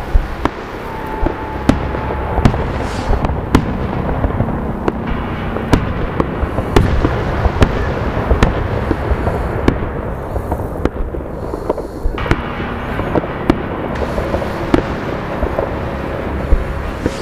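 Fireworks salute going off: a dense, irregular run of sharp bangs and crackling pops from bursting shells, with no break between them.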